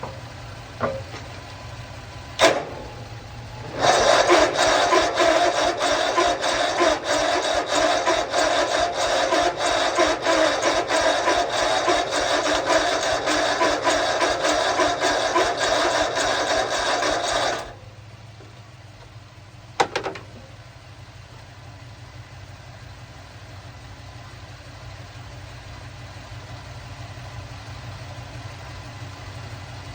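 John Deere riding mower engine being cranked by its starter for about 14 seconds, turning over in an even rhythm without catching: it will not start. A steady low engine hum runs underneath, with clicks before and after the cranking.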